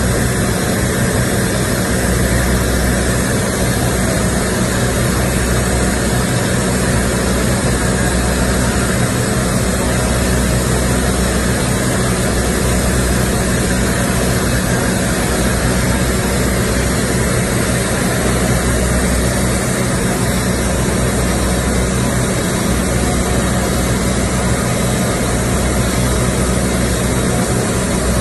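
Electric arc welding a girth seam on a large steel pipe: the electrode arc sizzles and crackles steadily without a break. Underneath runs a low rumble that swells and fades every few seconds.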